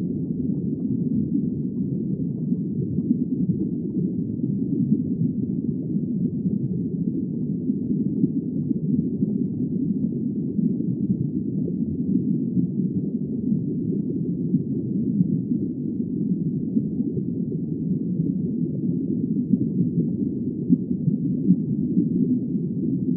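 A steady, muffled low rumble of noise, even throughout, with no distinct calls, knocks or tones in it.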